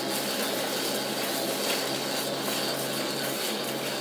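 Construction machinery engine running steadily, a constant drone with a low hum beneath a wash of noise.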